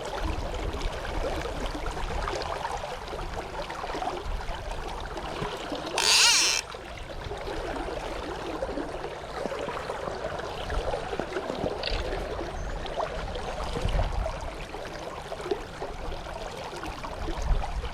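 River water flowing steadily with wind rumbling on the microphone. A brief loud hiss about six seconds in.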